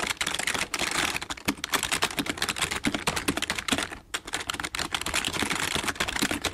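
Rapid, continuous clicking like fast typing on a keyboard, with a brief lull about four seconds in.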